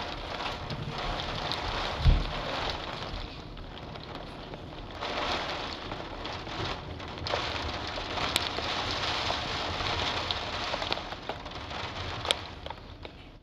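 Steady rain falling, an even hiss with scattered sharp ticks of drops striking close by. A single low thump about two seconds in.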